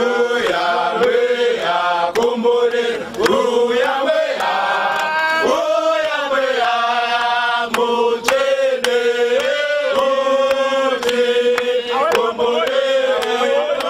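A crowd of demonstrators singing a protest chant together, holding long steady notes that shift in pitch every second or so, with sharp regular beats throughout.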